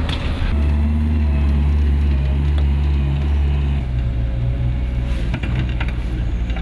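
Diesel engine of a JCB backhoe loader running, a steady low drone whose note steps up about half a second in and changes again near four seconds in.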